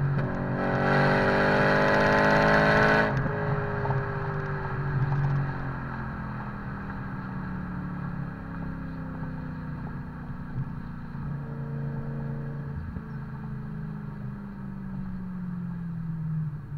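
BMW E90 M3's V8 through a Megan Supremo cat-back exhaust with the second catalytic converters removed, heard close to the tailpipes while driving: a brief hard pull with rising pitch, then the throttle is lifted about three seconds in and the engine note falls away slowly and steadily.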